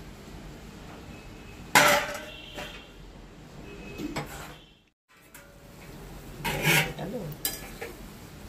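A steel plate set on a metal kadai as a lid, clattering loudly and ringing briefly about two seconds in, with a few smaller knocks after. Later, more metal clatter and a metal spatula scraping and clinking in the pan as the curry is stirred.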